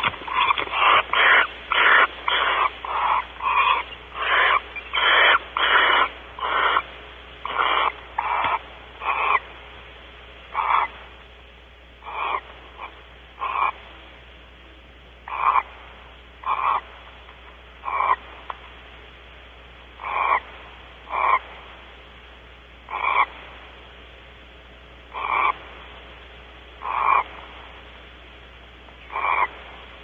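Barn owl giving a long series of short hissing calls. They come quickly, about two a second, then slow after about seven seconds to one every second or two.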